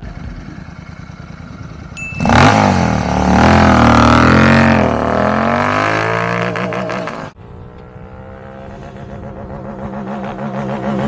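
Royal Enfield Continental GT 650 parallel-twin engine through a Red Rooster RRP Stellar aftermarket exhaust. About two seconds in it jumps to hard revving, its pitch climbing and falling several times. Around seven seconds it cuts abruptly to a quieter running note that grows louder again near the end.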